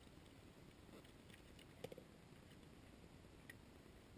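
Near silence with a few faint clicks, the sharpest about two seconds in, from hands handling a quick-release F-clamp at a motorcycle's rear swingarm.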